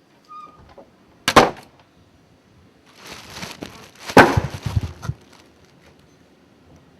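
Two loud, sudden cracks: one a little over a second in, then after a short crackling build a second crack followed by a few low, rumbling thumps.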